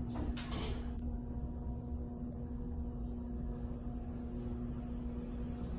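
Schindler 5500 elevator travelling down, heard from inside the car: a steady hum with a low rumble, after a brief noise about half a second in.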